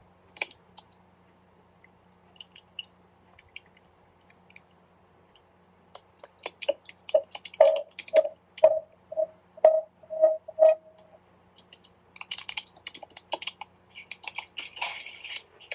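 Typing on a computer keyboard: scattered key clicks, then a run of about eight louder, evenly spaced key presses, roughly two a second, then quicker, lighter typing near the end.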